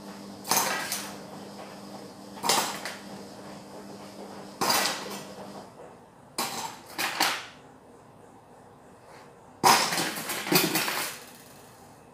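Dishes and cutlery clattering as washed kitchenware and knives are dried with a cloth and put down, in about six separate bursts, the longest a cluster of clinks about ten seconds in.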